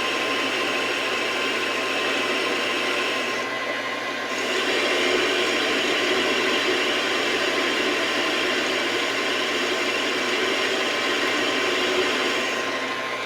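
Metal lathe running steadily, turning down the end of a steel vise handle bar: an even whirring hiss with a faint constant tone through it, briefly thinning in its upper range about four seconds in.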